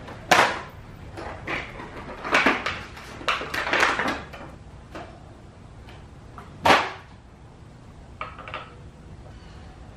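Plastic packaging crinkling and rustling as a new pair of motorcycle mirrors is unwrapped and handled, in a string of short irregular crackles and knocks. The loudest comes just before seven seconds in.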